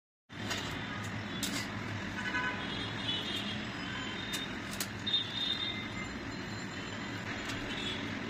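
Steady background traffic noise with faint horn toots, and a few sharp clicks of kitchen scissors snipping enoki mushroom stems in a steel bowl.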